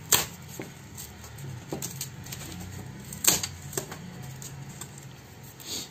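Scattered sharp clicks and light knocks, about six, the loudest about three seconds in, from a wooden marking gauge and thin cut teak plywood veneer strips being handled on a workbench.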